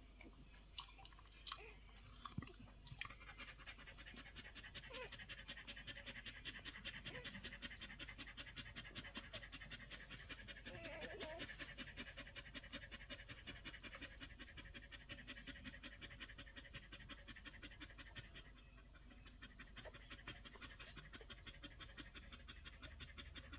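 A collie mother panting quickly and steadily while her puppies nurse, starting about three seconds in. A few faint squeaks and clicks sit under the panting.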